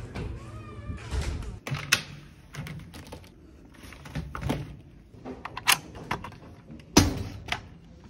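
A glass shop door pushed open with a short squeak, then a run of clicks and knocks from handling a plastic shopping basket and a coin-operated locker. A loud thunk about seven seconds in as the locker door is shut.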